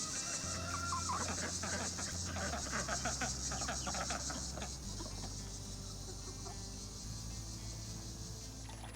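Chickens clucking over background music with slow held bass notes. A high, steady insect buzz is strong for the first half and then fades.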